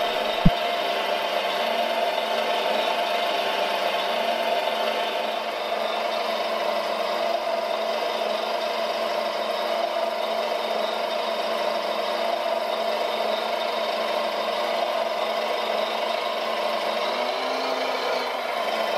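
RC Volvo L250G wheel loader model running steadily, an engine-like drone from its motors and sound unit, with a sharp click about half a second in.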